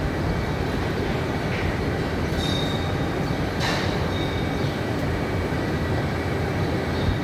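Steady mechanical rumble of dairy-barn equipment running, with a few brief high squeaks and a sharp knock partway through.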